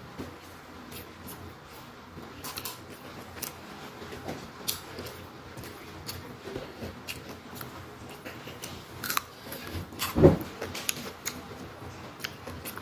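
Close-up eating sounds: chewing and small mouth clicks as rice and side dishes are eaten by hand, with light crinkles from the paper food wrapper. One louder, lower sound comes just after ten seconds in.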